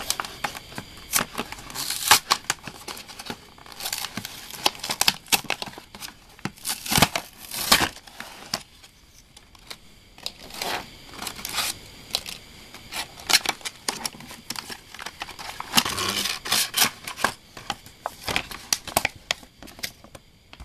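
Cardboard-and-plastic toy packaging being torn open and handled: repeated ripping of the cardboard and crinkling, clicking plastic blister trays. There is a short lull about nine seconds in.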